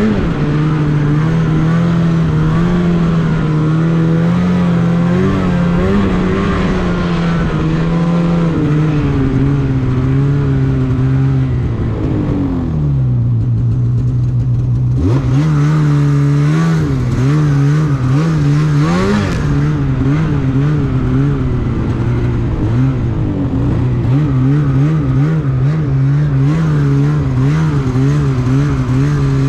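Snowmobile engine running under way, the revs dropping to a steady idle about 12 seconds in, then picking up again a couple of seconds later and rising and falling with the throttle.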